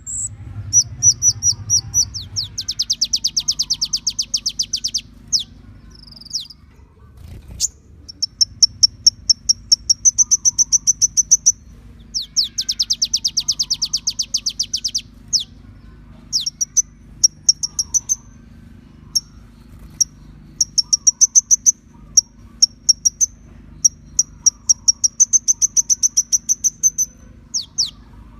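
Kolibri ninja sunbird singing high, very fast trills of rapid repeated notes, in bursts of a few seconds with short pauses between, over a low steady hum.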